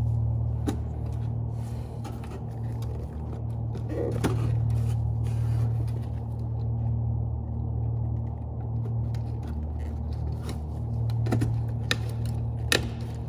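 A steady low hum runs underneath a few short, sharp clicks and light scrapes of plastic retainer clips being worked onto a refrigeration controller's housing in a stainless-steel panel.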